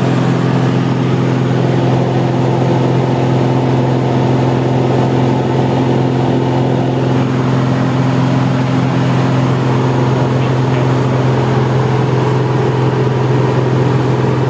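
Jabiru SP500 light aircraft's engine and propeller droning steadily in cruise, heard inside the cockpit, with wind rushing past the cabin. The drone holds level, its tone shifting slightly about halfway through.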